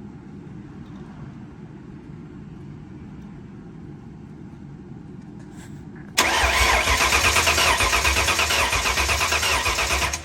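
Starter cranking the built Ford 5.0 V8 with a fast, even pulsing, starting suddenly about six seconds in and cutting off after about four seconds without the engine catching: the engine is getting no spark. A steady low rumble comes before it.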